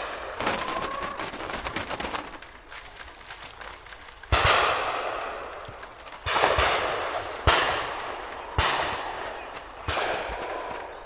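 Shotguns firing: a sharp report about four seconds in, then four more spaced a second or so apart, each followed by a long rolling echo that fades away.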